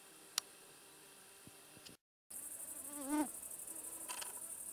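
A faint steady hiss with a single sharp click, then, after a short cut, a loud, dense high-pitched chirring of meadow insects. A short pitched call rises and falls about three seconds in.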